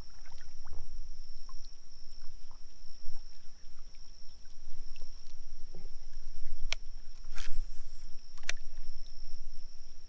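Sounds aboard a fishing paddleboard on the water: a low rumble and a steady high-pitched whine, with three sharp knocks or clicks between about seven and eight and a half seconds in.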